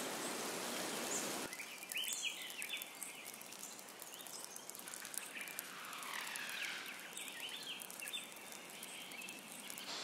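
Rainforest ambience: a steady hiss of rain and dripping, a little louder for the first second and a half, with a few short chirping animal calls about two seconds in and a slow falling call about two-thirds of the way through.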